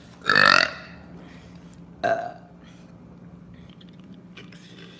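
A young woman burping: a short, loud burp just after the start and a smaller one about two seconds in.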